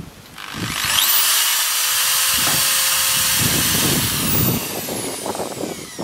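Electric drill spinning up and boring through a metal jar lid into a wooden block underneath, running steadily for a few seconds and then winding down about four and a half seconds in.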